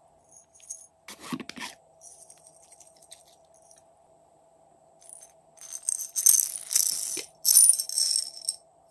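Small plastic bottles of slime toppings (beads and sequins) being shaken and poured, their contents rattling in short bursts, loudest in the last few seconds.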